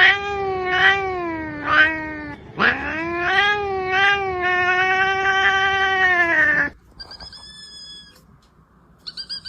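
Domestic cat yowling: a drawn-out call that swells three times over about two seconds, then one long yowl that rises and holds steady for about four seconds. Fainter, higher-pitched cries follow near the end.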